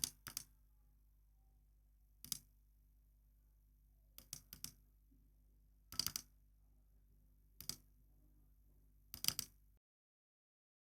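Computer mouse button clicking: short sharp clicks in ones, twos and a quick run of three, a second or two apart, stopping suddenly near the end.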